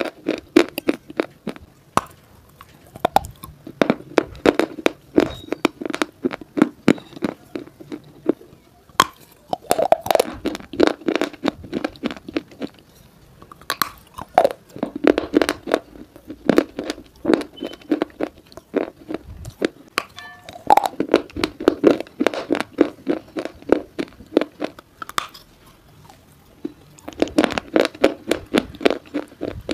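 Close-miked biting and crunching chewing of a thin grey stone piece of slate or shale type: rapid gritty crunches in bouts of several seconds, with brief lulls between bites.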